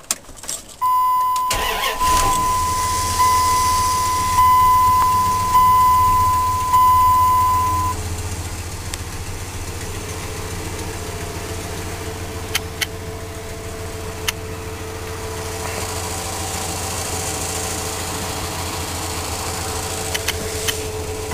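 2000 Dodge Ram 2500's 5.9-litre Magnum V8 cranks and catches about a second and a half in, rises and falls in short steps, then settles into a steady idle. A steady high warning tone from the dash sounds over the start and stops about eight seconds in. A few light clicks come later.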